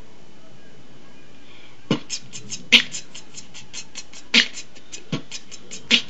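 Mouth beatboxing: a fast, even run of clicking hi-hat sounds, about six a second, starting about two seconds in, with a few louder, deeper kick-like hits mixed in.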